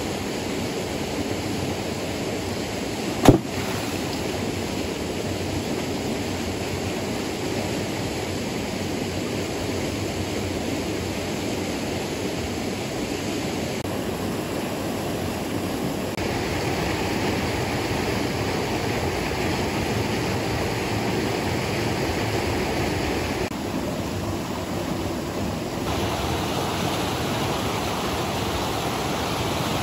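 Shallow rocky stream rushing steadily over stones, with one sharp knock about three seconds in.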